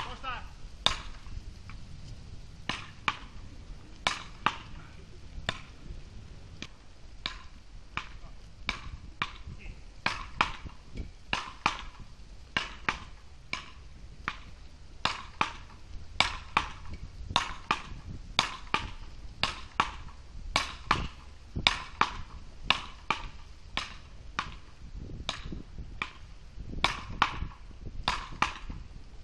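Beach paddle rackets hitting a small ball back and forth in a long rally: a sharp, slightly ringing clack about every half second to a second, some hits louder than others.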